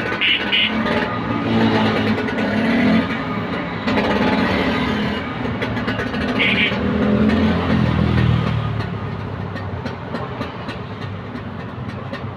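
Vespa scooter engine running and being revved up and down in several swells, with short horn beeps near the start and again a little past six seconds.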